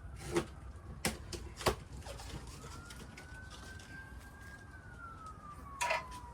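A faint siren wailing, its single tone slowly rising and then falling over several seconds. A few sharp clicks and knocks sound over it.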